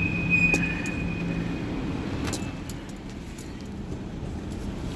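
Brake squeal from a 2015 Hyundai Genesis Coupe as it slows in first gear: a steady high-pitched tone that stops about a second and a half in, leaving the engine running at low speed with a few sharp clicks. The owner says it squeaks every time he brakes and takes it for a fault.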